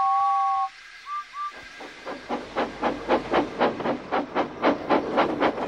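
Steam locomotive whistle sounding a two-note blast, one long then two short toots, followed by the even chuffing of a steam engine under way, about four puffs a second.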